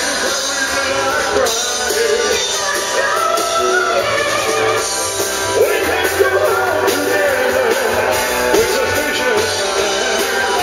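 Live rock-and-roll band: a man sings lead into a microphone over electric guitar and drums.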